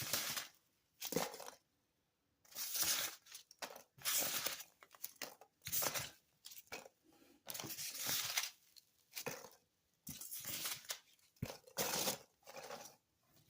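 Foam packing peanuts being scooped up by hand, rustling and crunching in about a dozen short bursts.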